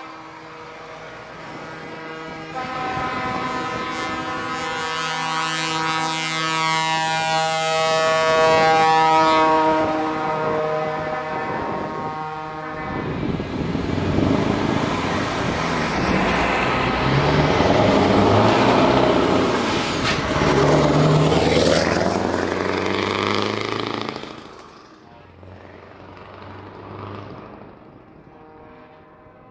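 Truck air horns sounding in long, sustained blasts, their chord of tones sliding slowly lower, over the diesel engine of a Volvo FH tractor unit pulling away. About halfway, a louder, rough rush of diesel engine and exhaust noise comes from another truck passing close by. It drops away sharply near the end, leaving quieter engine noise.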